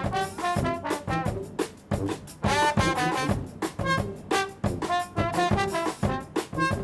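New Orleans-style brass band playing swing-funk: trombones and trumpets over drum kit, in short punchy phrases.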